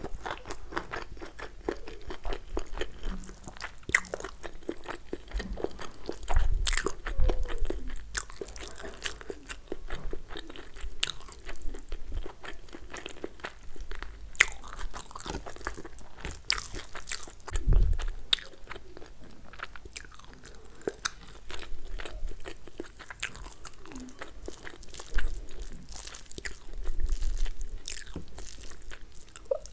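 Close-miked eating sounds of masala chicken and fried rice being bitten and chewed, with many small irregular mouth clicks throughout. A few louder low thumps come about six, eighteen and twenty-seven seconds in.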